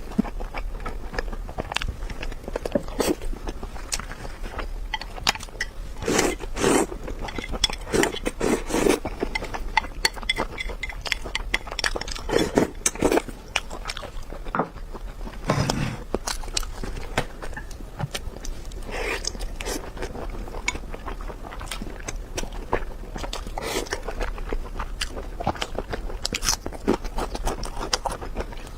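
Close-miked eating sounds: steady chewing and biting with frequent sharp, wet clicks and several louder mouthfuls.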